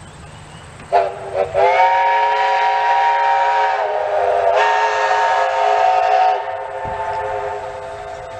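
Steam locomotive whistle of Victorian Railways J class J549: a short toot about a second in, then one long blast held for several seconds, easing off and trailing away more quietly over the last two seconds.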